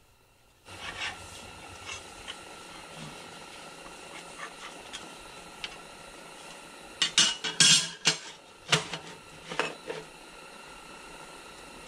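Thin sheet-metal chip guards knocking and clinking against the metal knee of a Bridgeport milling machine as they are handled and set in place. There are a few light clicks at first, then a run of louder metallic clatter about seven to ten seconds in.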